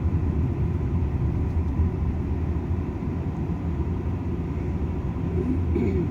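Steady low rumble of road and engine noise inside a moving car. A faint, short vocal sound comes near the end.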